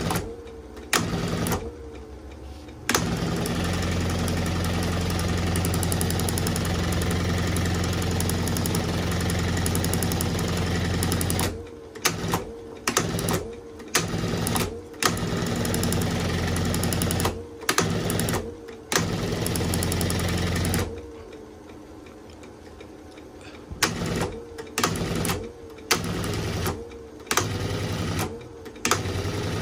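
Singer 114E103 chain-stitch embroidery machine running on its table motor with a fast, even rattle, started and stopped in short bursts of about a second, with one long run of about eight seconds and another of about five.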